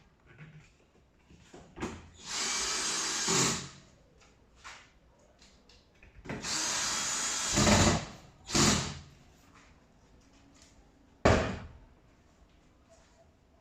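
Power drill driving screws while a tumble dryer is assembled: two steady runs of about a second and a half each, then a shorter burst. A sharp knock follows a few seconds later.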